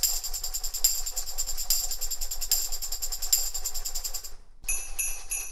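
A tambourine shaken in a steady, even rhythm, cut off suddenly about four and a half seconds in. After a brief gap, jingle bells take over.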